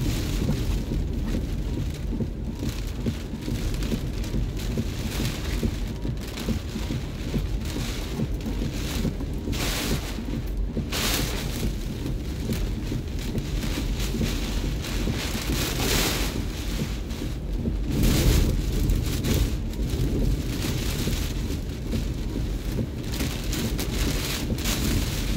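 Hurricane Ian's wind and heavy rain battering a vehicle, heard from inside the cab: a steady deep rumble of wind buffeting under rain drumming on the windshield and roof. Gusts swell several times, the strongest about three-quarters of the way through.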